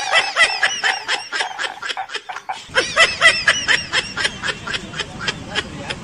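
Rapid high-pitched laughter, a quick run of short 'ha' syllables at about five or six a second. A low background rumble comes in a little under halfway through.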